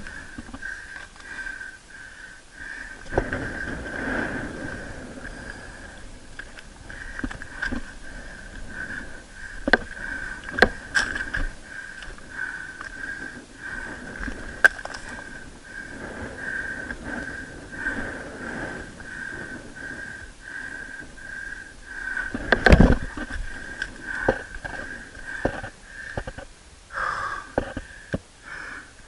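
A climber's hands and feet scraping and knocking on rough rock, with a sharp knock about two-thirds of the way through, and the climber's breathing. A steady high-pitched whine pulses underneath throughout.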